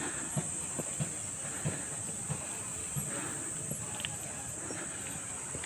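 Footsteps walking uphill on a concrete road at a steady pace of about three steps every two seconds, with heavy breathing from the effort of the climb. A steady high insect drone runs underneath.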